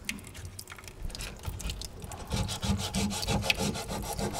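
Wet-sanding by hand: coarse sandpaper rubbed back and forth over a machined 6061 aluminum panel under water. The strokes are faint at first and become steady, regular rasping at about three a second roughly two seconds in.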